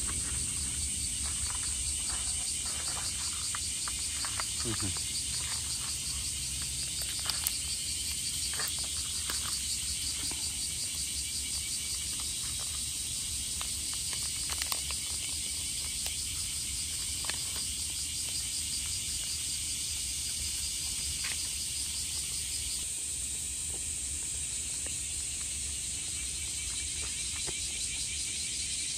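A steady, high-pitched chorus of insects with a fine pulsing texture, over a low outdoor rumble, with scattered small clicks, most of them in the first third.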